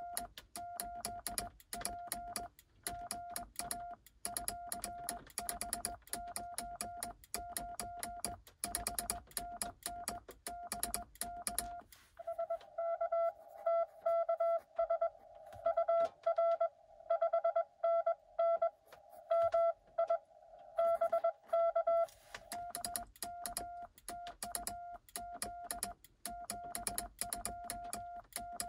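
Morse code sent on a cootie (sideswiper) key, heard as the Xiegu X6100's sidetone: a steady-pitched beep keyed in dots and dashes, with the key's contacts clicking on each element. About twelve seconds in, the clicks stop and a louder keyed tone comes through in a narrow band of hiss for about ten seconds: an answering station heard through the radio's narrow CW filter. After that the clicked sending resumes.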